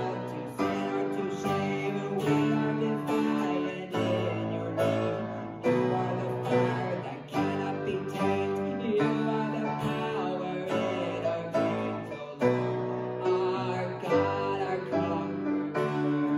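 Acoustic guitar strummed together with a grand piano, playing a worship song.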